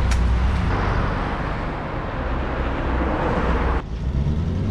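Road traffic as a steady low rumble. About four seconds in the sound cuts off sharply, and an old truck's engine comes in, rising in pitch as it revs.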